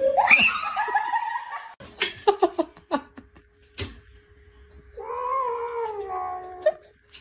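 A domestic cat yowling in two long, wavering calls, with a short burst of human laughter between them.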